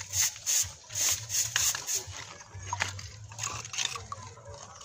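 A steel trowel scraping and tapping on mortar and stone in quick repeated strokes, about three a second, thinning out after about two seconds. A low steady hum runs underneath.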